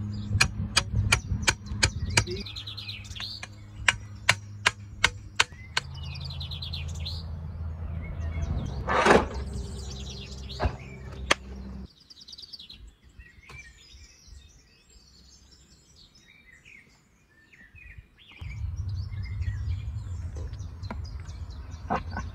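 Birds chirping, over a low steady hum that drops away for several seconds in the middle. Two runs of sharp, evenly spaced clicks come in the first few seconds, and there is one brief louder swell about nine seconds in.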